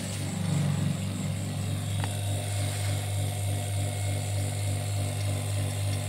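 Refrigeration vacuum pump running steadily with a low hum and a slow, even pulsing, pulling a vacuum on a refrigerator's sealed system through a manifold gauge before gas charging. A short click about two seconds in.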